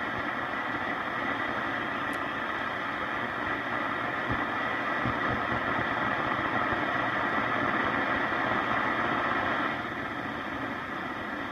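Static and hiss from a 1942 Zenith 8S661 console radio as its tuning knob is turned between stations, swelling a little and then dropping back near the end. Two faint low thumps come about halfway through.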